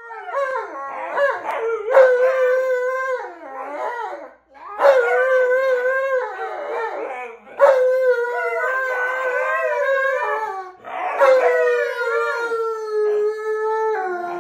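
Alaskan malamute howling: a run of long, wavering howls one after another, with short breaks between them.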